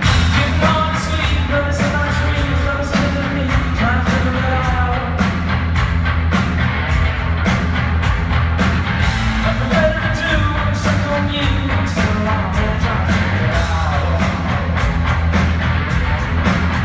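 Live rock song: a heavily distorted bass guitar riff and a drum kit, with a sung vocal line over them, heard from among the audience in a large hall.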